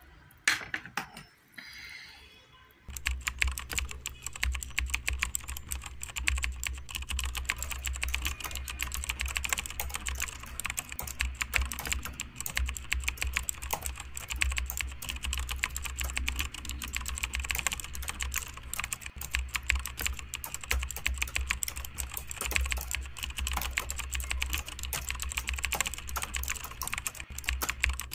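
Fast typing on an HP laptop keyboard: a dense, uneven run of quick key clicks that starts about three seconds in. Before it there is a brief knock.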